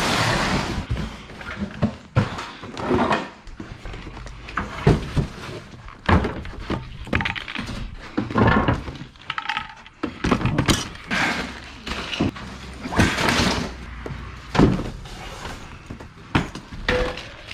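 Irregular thuds, knocks and scrapes of cardboard boxes and household items being picked up, shifted and set down on a box truck's floor.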